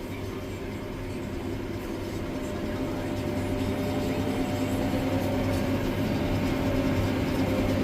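Tractor and round baler running, a steady machine hum that grows gradually louder while one tone slowly rises in pitch, as the machinery speeds up.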